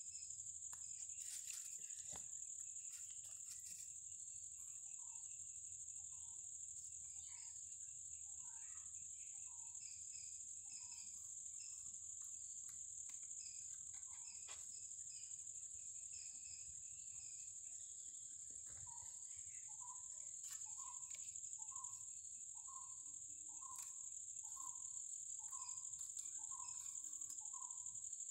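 Steady high-pitched drone of insects, crickets or cicadas, with a bird repeating one short note, irregularly at first and then a little faster than once a second from about two-thirds of the way through. A few faint clicks come near the start.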